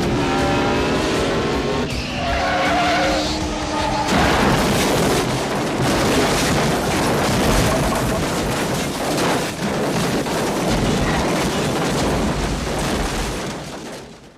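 Stock car racing crash: engines running at high revs with a gliding pitch, then about four seconds in a sudden, dense noise of skidding tyres and crashing cars that continues and fades out at the end.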